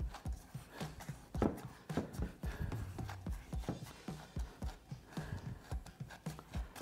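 Ground sausage meat being packed by hand into a stainless steel sausage-stuffer canister, with irregular dull thumps and knocks several times a second. The meat is being pressed down to force out air pockets before stuffing.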